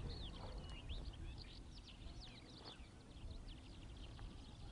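Small birds chirping: many quick, high chirps overlapping, over a steady low rumble.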